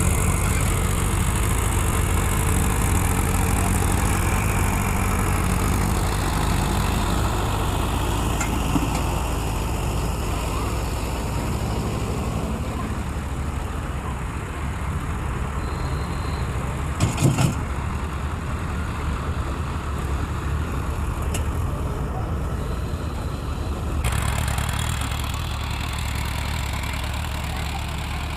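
Tractor's diesel engine running steadily, with a short run of knocks about seventeen seconds in.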